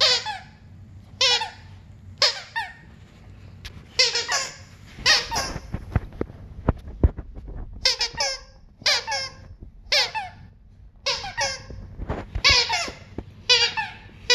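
A dog's plush squeaky toy squeaking again and again as the dog chews it, one or two squeaks a second. There is a gap of about two seconds near the middle with low muffled thumps instead.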